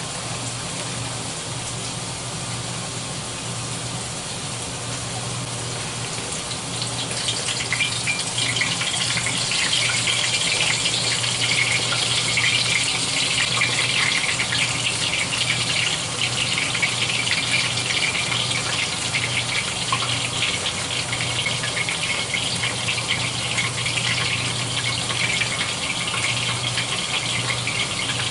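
Hot cooking oil in stainless pans sizzling and crackling as battered pieces of trout and more fry in it. The crackle grows louder and busier about seven seconds in and stays that way while more battered pieces are dropped into the oil.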